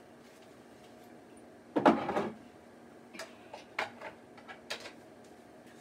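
Kitchen cupboard handling: one louder rattling knock about two seconds in, then a few light clicks as things are moved about on the spice shelf.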